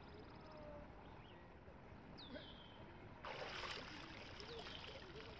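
A splash of water with about a second of pouring and dripping, a little after halfway; this is the loudest sound. Twice, a bird gives a short whistle that falls in pitch.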